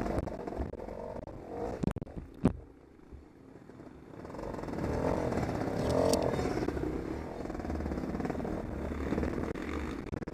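Off-road motorcycle engine running and revving, easing off about three seconds in and picking up again around halfway, with two sharp knocks about two seconds in, the second one loud.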